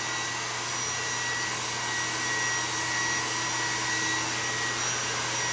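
Steady whooshing machine noise with a low hum and faint high-pitched whines, unchanging in level.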